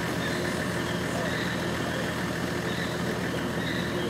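A motor vehicle engine idling with a steady low hum. Faint short high chirps sound now and then over it.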